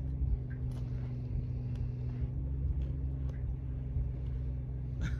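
A steady low hum like a running engine, with a few faint clicks over it.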